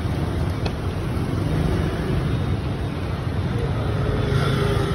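Motorbike street traffic: scooters running and passing close by, a steady low rumble.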